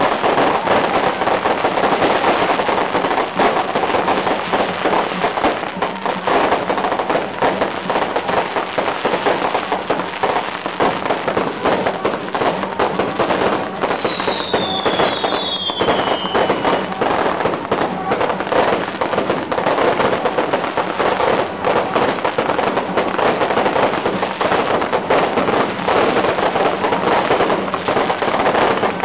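Firecracker strings going off continuously in a dense, unbroken crackle. Two short falling whistles cut through about halfway.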